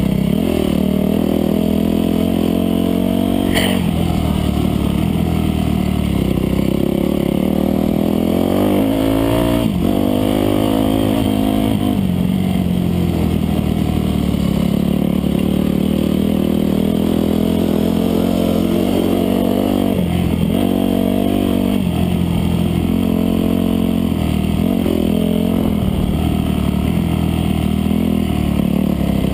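Off-road dirt bike engine running hard under load, its pitch rising and falling as the throttle opens and closes and the rider shifts gears.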